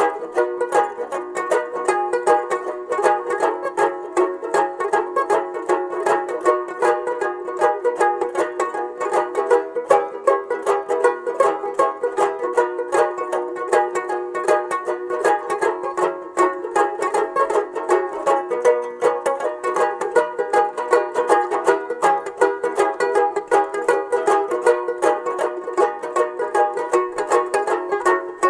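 Background music of fast, steady banjo picking, with quick plucked notes going on without a break.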